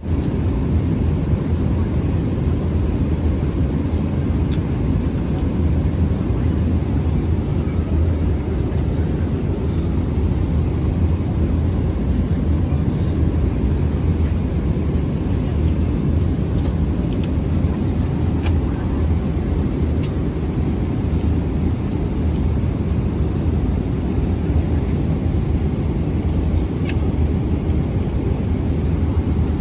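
Steady low rumble of an airliner cabin in flight: jet engines and airflow, heard from a passenger seat, with a few faint clicks.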